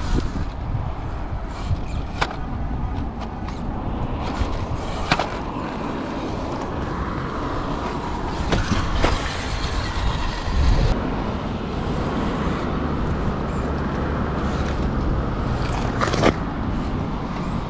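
1/12-scale RC crawler with a 370 motor and reduction gearbox driving over gravel and dirt: the motor and drivetrain run continuously while the tyres grind on loose stones, with a few sharp clicks and knocks along the way.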